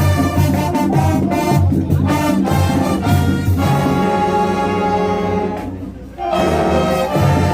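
High school show-style marching band playing. Brass and drums hit rhythmic accents, then the brass holds a long chord that fades away. After a short break, a loud new brass chord comes in near the end.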